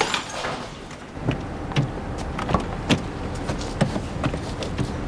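Car driving, heard from inside the cabin: a steady low engine and road rumble that comes in about a second in, with scattered sharp clicks and knocks over it.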